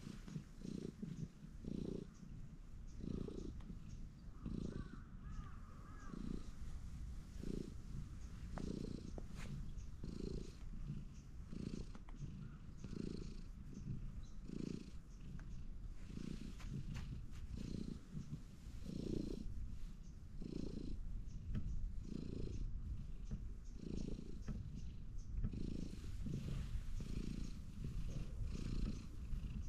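Ginger-and-white cat purring close to the microphone while it is stroked on a lap: a steady low rumble that swells and eases with each breath, roughly once a second.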